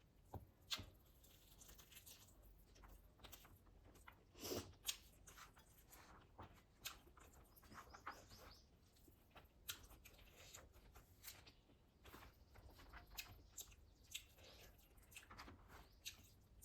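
A person chewing food up close: soft crunches and wet clicking mouth sounds at an irregular pace, with a few sharper clicks standing out.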